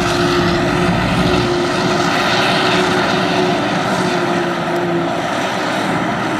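Claas Jaguar 870 self-propelled forage harvester running under load, a loud, steady machine drone with a held whine, as it picks up a grass swath and blows the chopped grass into a silage trailer.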